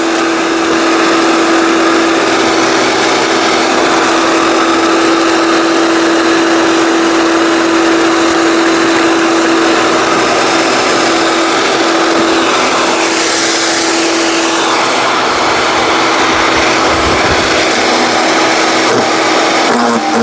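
15-amp electric wood chipper/shredder running loudly and steadily, a constant motor whine over a rushing noise from the cutter. The sound changes briefly about 13 seconds in.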